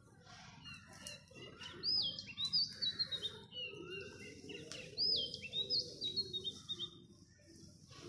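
A songbird singing two short whistled phrases about three seconds apart, each a quick rising note followed by a run of falling notes, over a low steady background noise.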